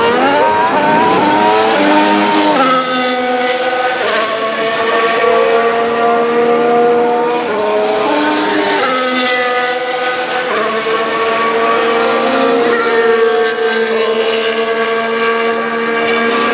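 2025 Formula 1 cars' 1.6-litre turbocharged V6 hybrid engines running at high revs. The pitch climbs at the start, then holds and steps to new pitches several times as gears change.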